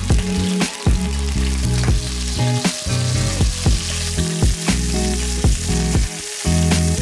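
Beef short ribs sizzling steadily as they sear in hot oil in an enameled cast-iron pot. Mellow background music with low notes and a soft regular beat plays alongside.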